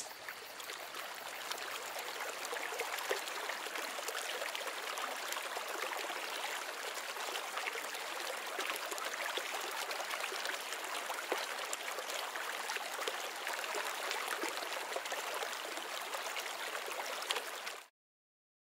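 Running water, like a small stream: a steady babbling rush that cuts off suddenly about a second before the end.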